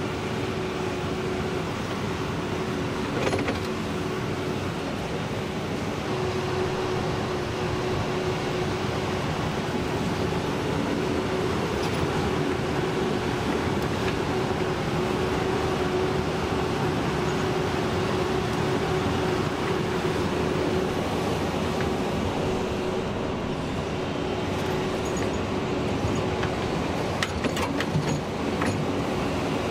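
Doosan DX235LCR excavator working: its diesel engine and hydraulics running steadily with a constant whine. The bucket digs dirt, with a short sharp knock about three seconds in and a few more near the end.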